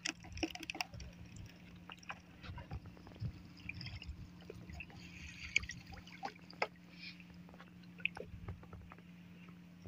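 Water dripping and trickling off a fishing net as it is hauled by hand into a wooden boat, with scattered light clicks and knocks of the net against the hull. A faint steady low hum runs underneath.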